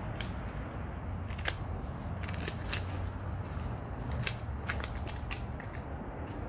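Scattered, irregular sharp crackles and clicks of dry leaves and twigs being disturbed as small dogs nose about on the ground, over a steady low hum.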